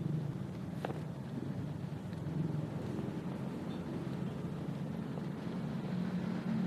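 Steady low hum of a car's running engine heard from inside the cabin, with one faint click about a second in.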